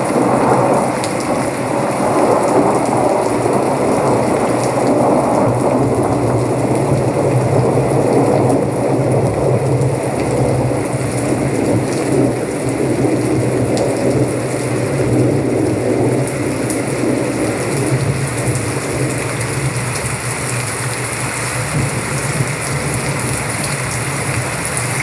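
Soundcore Select Pro Bluetooth speaker playing a rain-and-thunderstorm recording loudly: steady rushing rain with a low rumble under it.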